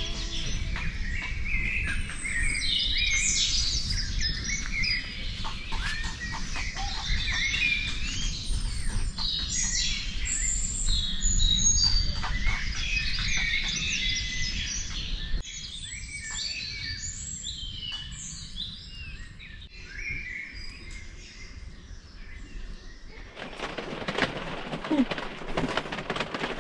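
Many songbirds chirping and singing at once in an outdoor chorus, with a low rumble underneath for the first half. Near the end the birdsong gives way to a steady hiss.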